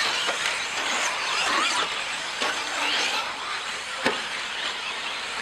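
Radio-controlled 4WD short course trucks racing on a dirt track: the high whine of their electric motors and the hiss of tyres on dirt, with one sharp knock about four seconds in.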